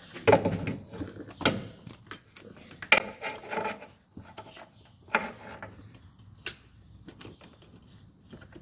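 Metal hand tools clinking and knocking: a 15 mm socket, universal joint and long extension bars being fitted and worked onto the upper starter mounting bolt. Irregular sharp clicks, busiest in the first four seconds, then sparser.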